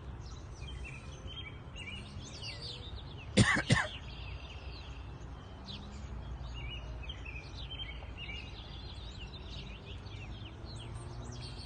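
A colony of purple martins chirping, many short, quick calls overlapping. About three and a half seconds in, a person coughs twice, loud and close.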